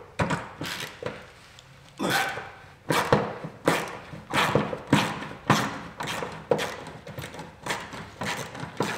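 A run of sharp metallic knocks and clunks, roughly one or two a second and closer together after about two seconds in: hand tools working at a seized, rusty bolt on a Land Rover Series 3 body.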